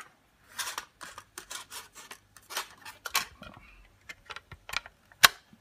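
Irregular small clicks and scrapes of hands handling a laptop SSD seated in a USB drive adapter, with one sharper click near the end.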